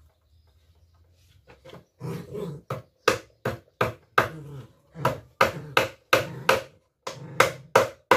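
Hammer driving a nail to fix the loose handle of a small homemade sink squeegee. A few light taps come first, then from about three seconds in a run of sharp blows, two or three a second.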